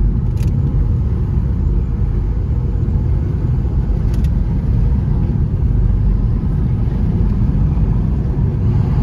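Steady low rumble of a car driving on an asphalt road, engine and tyre noise heard inside the cabin, with two faint clicks about half a second and four seconds in.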